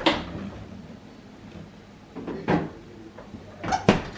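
Refrigerator door and food storage containers being handled: a sharp knock at the start, another about two and a half seconds in, and two quick clunks close together near the end.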